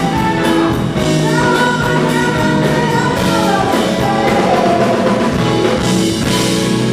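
Live band playing a soulful, jazzy pop song: a woman sings lead over drums, electric bass, guitars and keyboard.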